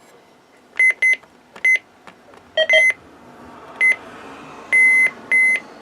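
Several weather alert radio receivers beeping one after another as they pick up a NOAA Weather Radio Required Weekly Test: about seven short, high electronic beeps, one of them a two-tone chirp, the last two held longer.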